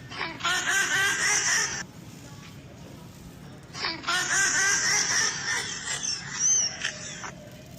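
A recorded baby-laughter sound effect played back twice: a burst of about a second and a half, then a longer one of about three and a half seconds, each starting and stopping abruptly.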